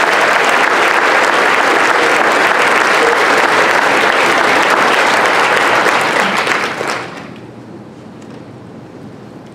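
Audience applauding, the clapping dying away about seven seconds in and leaving quiet room noise.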